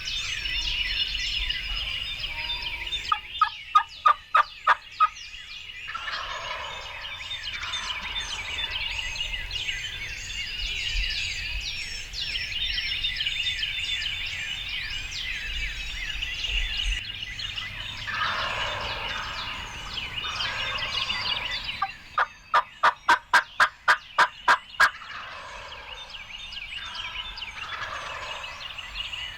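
Wild turkey gobblers gobbling against a dense chorus of songbirds. Twice a loud run of quick, evenly spaced notes stands out, once a few seconds in and again near the end, and softer gobbles answer in between.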